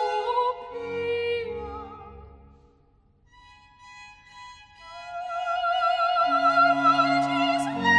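Baroque sacred music for soprano, strings and basso continuo, tuned low to A = 415 Hz. A phrase dies away to a brief pause about three seconds in. Then a slow passage of held notes with vibrato swells, and the bass line comes in near the end.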